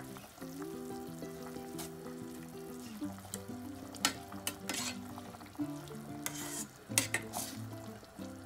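Ladle stirring simmering chicken soup and moringa leaves in a metal pot: scraping, sloshing strokes with a few sharper knocks against the pot, the strongest about four and seven seconds in. Background music with held notes plays underneath.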